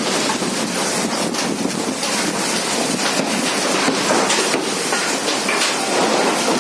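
Strong storm wind blowing hard in a steady rush with scattered rattles and knocks.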